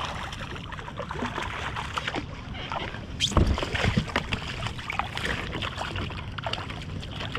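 A hooked fish splashing and thrashing at the surface right beside a kayak, mixed with clicks and knocks of hands and fishing gear against the hull; the heaviest thumps come about three and a half to four seconds in.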